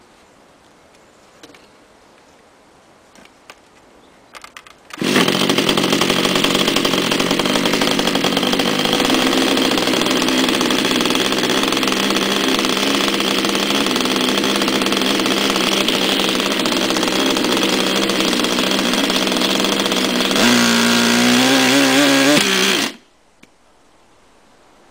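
A model autogyro's small engine starts about five seconds in after a few light clicks and runs fast and loud. About two seconds before the end it gets louder with a wavering pitch, then stops suddenly: the catastrophic engine failure blamed on an out-of-balance propeller.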